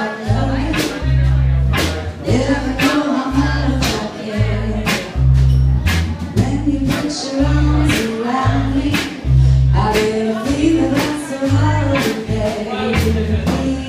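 Live band playing: a woman singing lead over electric guitars and a drum kit keeping a steady beat.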